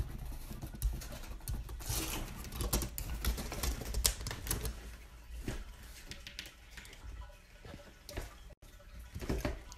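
Rapid irregular clicking and tapping, thickest in the first half and thinning out later.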